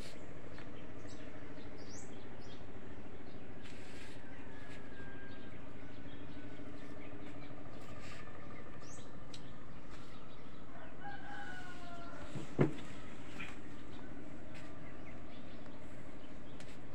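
A rooster crowing once, about eleven seconds in, over steady outdoor background noise with a few faint bird chirps. A single sharp click comes just as the crow ends.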